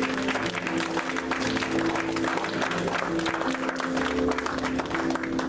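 Sustained chords on a keyboard instrument, with a congregation clapping and applauding throughout.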